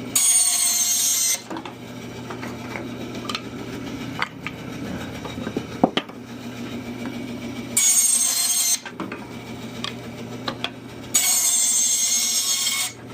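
Bandsaw running and cutting firewood into pieces three times. Each cut is a loud burst with a high whine: one at the start, a shorter one about eight seconds in, and a longer one near the end. Between cuts the motor hums steadily, with a few sharp clicks as the wood is handled.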